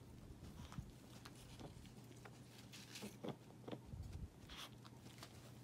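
Near silence: quiet room tone with a few faint, scattered soft ticks and rustles.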